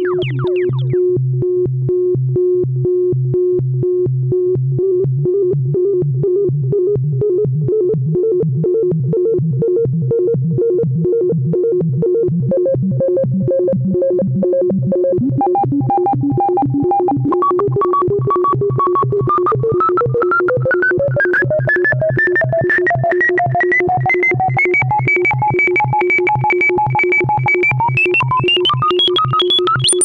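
Kawai S-100F monophonic analog synthesizer holding a low, rapidly pulsing tone while its panel controls are adjusted. From about halfway through, a higher tone glides slowly upward in pitch, and it jumps higher at the end.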